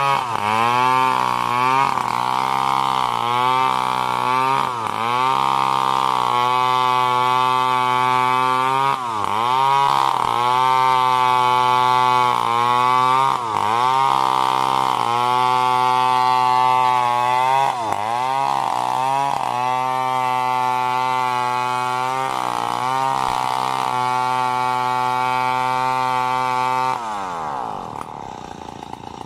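STIHL two-stroke gasoline chainsaw running at high revs while cutting a coconut log. Its pitch dips and recovers again and again as the chain bites into the wood, then falls to idle near the end.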